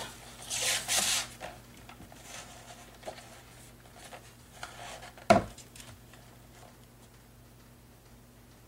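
A sheet of cardstock sliding and rubbing against a Fiskars paper trimmer as it is lined up for a cut, with a few small taps and one sharp knock a little past five seconds in. A faint steady low hum lies beneath.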